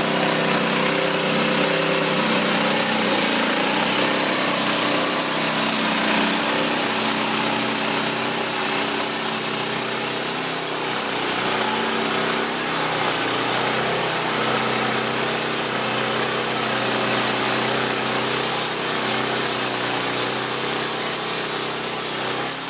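Sawmill blade cutting through an oak log, a steady, loud sawing hiss over the hum of the mill's engine, whose note wavers a little under the load of the cut.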